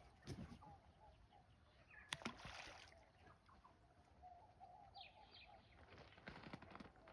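Faint outdoor nature ambience with scattered bird calls, including a falling whistle about five seconds in, and a couple of sharp knocks about two seconds in.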